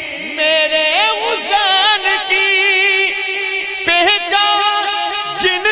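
A man singing an Urdu devotional naat into a microphone, in long drawn-out phrases with wavering, ornamented pitch and short breaths between them.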